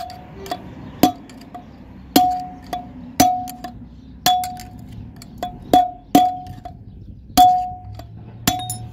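Hammer blows on a screwdriver used as a drift, knocking the old wheel-bearing race out of a Saipa Pride's rear hub; the bearing is worn out. About a dozen sharp metal strikes, spaced unevenly, each ringing briefly.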